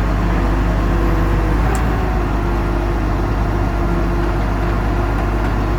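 Heavy diesel engine of a recovery machine running steadily.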